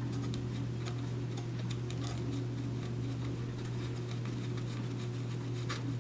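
Light, irregular ticking and clicking of a Wi-Fi antenna's threaded connector being turned by hand onto the router's brass antenna post. The clicks come thick in the first couple of seconds, then sparse, with one more near the end, over a steady low hum.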